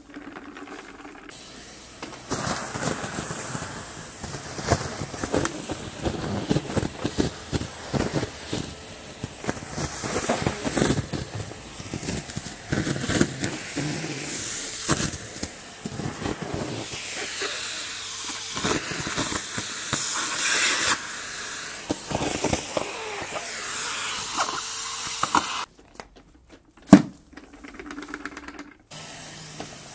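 Numatic Henry 160 vacuum cleaner running with a steady rushing hiss as it sucks up dry leaves, which crackle and rattle irregularly as they go up the hose. The sound breaks off abruptly twice near the end.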